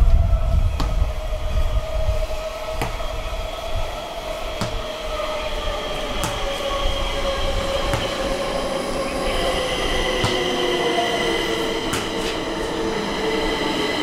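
Stockholm metro train slowing as it pulls in. A heavy low rumble at first gives way to a motor whine that falls steadily in pitch, while high, steady wheel-and-brake squeal tones build through the second half, with scattered clicks of wheels over the rails.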